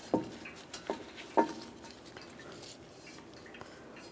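Metal ratchet buckle and hook of a ratchet strap clinking as the strap is pulled around a car's bumper and cross member: three sharp clinks in the first second and a half, then faint strap rustling.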